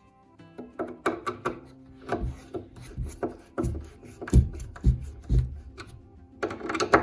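Background music over a run of irregular wooden knocks and taps, the sound of flat-pack cabinet panels being handled and fitted together.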